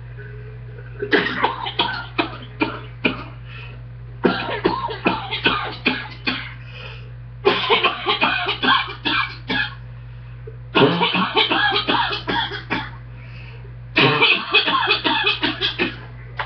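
A person coughing from a chest cold, in five fits of rapid, harsh chest coughs, each fit about two seconds long with short pauses between. A steady low hum runs underneath.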